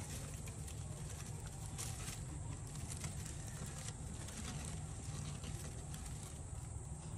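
Faint rustling and crackling of dry hay and bamboo leaves as newborn red panda cubs shift in their nest, over a steady low hum and hiss.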